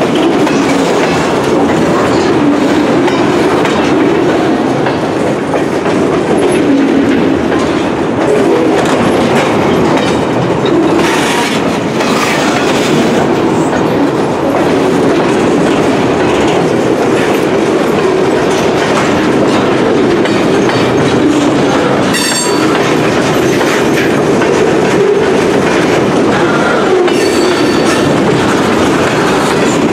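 Heavily loaded freight flatcars rolling past close by: a steady rumble with the clickety-clack of steel wheels over the rail.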